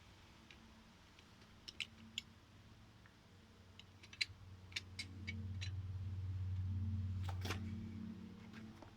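A low, steady electric hum that swells louder for a few seconds past the middle, with scattered sharp clicks and ticks over it.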